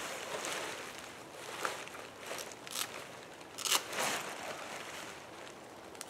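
Fabric rustling as a tipi's stuff sack is handled and opened, in several short scuffs over the first four seconds.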